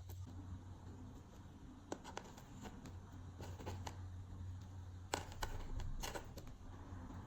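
Glossy slime being mixed by hand, giving soft sticky clicks and squelching pops, with a run of louder pops about five to six seconds in. A steady low hum runs underneath.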